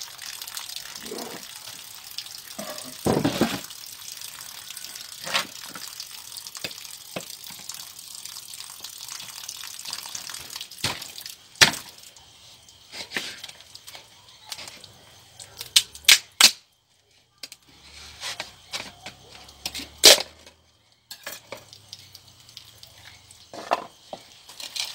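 A knife stabbing into and cracking open the dry, hard shell of a caxi gourd, giving a series of sharp cracks and knocks that come thickest in the second half. A steady hiss fills the first half, with a thump a few seconds in.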